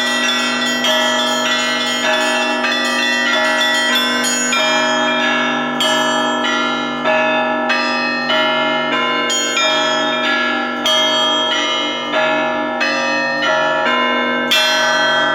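Russian Orthodox church bells rung together in an evening peal: quick, overlapping strikes of several bells, with a steady deep ringing tone beneath. About a third of the way in the strikes settle into an even beat of roughly one every 0.7 s, and one strong stroke comes near the end.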